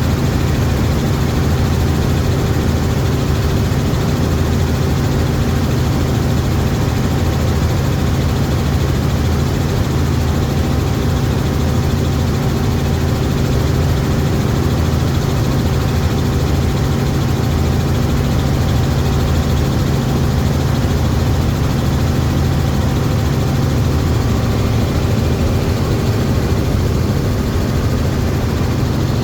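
Helicopter running steadily: a loud, constant low drone that holds the same pitch throughout.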